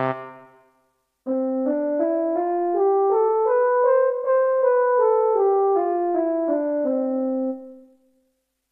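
Yamaha PSS-F30 mini keyboard playing one preset voice as single notes, a scale climbing and then coming back down at about two notes a second, each note with a sharp attack. Before it, the previous voice's last note fades out.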